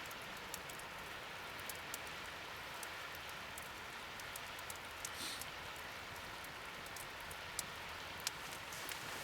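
Wood fire crackling in a fire stand: a steady hiss with irregular sharp pops and snaps, several of them clearly louder.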